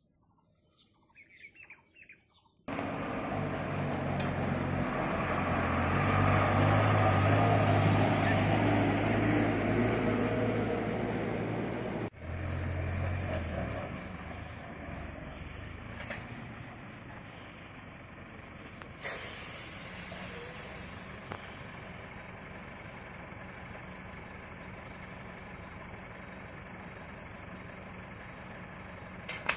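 Heavy diesel engine of a loaded tipper truck running nearby. It starts abruptly a few seconds in, is loudest for the next ten seconds or so, then settles to a quieter steady run. Faint bird chirps come before it.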